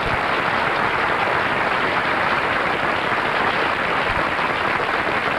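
Studio audience applauding, a dense, even clapping that holds steady throughout.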